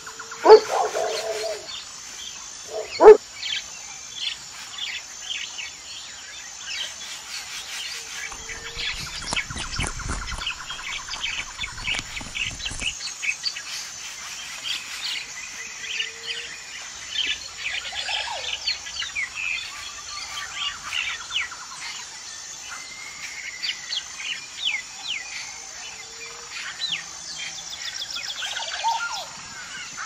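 A dog barks loudly twice near the start, about two and a half seconds apart. Then many small birds chirp and twitter in quick, overlapping calls.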